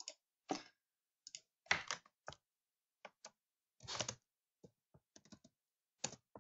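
Faint, irregular clicks and taps from a computer keyboard and mouse, about fifteen spread unevenly over a few seconds.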